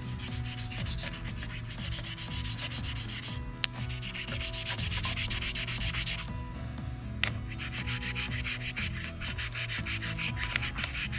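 Oil stone rubbed in quick back-and-forth strokes on the diaphragm mating surface of a Weber 40 IDF carburettor, lapping it flat so the diaphragm seals and stops leaking fuel. The strokes pause briefly twice, each time ending in a sharp click.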